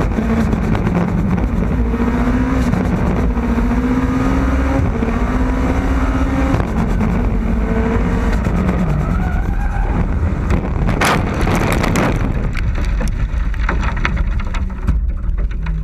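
Race car engine running hard at high revs, its pitch stepping through gear changes, then the note falls away. About eleven seconds in, a cluster of heavy impacts comes as the car crashes off the road, followed by scattered clatters of dirt and debris.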